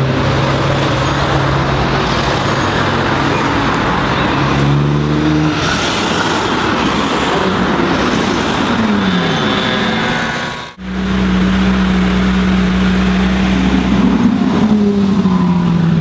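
Ferrari 458 Italia's V8 engine running with a steady pitch, twice sliding down in pitch. The sound drops out abruptly for a moment about two-thirds of the way through, then resumes at a steady, higher pitch.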